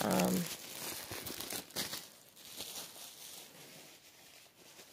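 Plastic shrink-wrap crinkling and crackling as it is pulled off and handled on a boxed card deck, busiest in the first couple of seconds and then thinning out to a few faint rustles.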